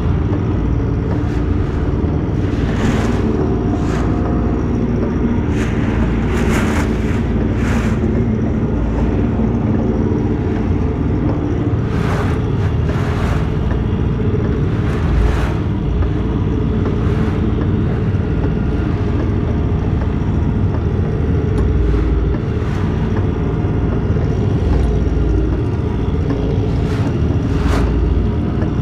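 Boat under way at speed: its engine running steadily, with spray and water rushing past the hull in short hissing gusts every second or two.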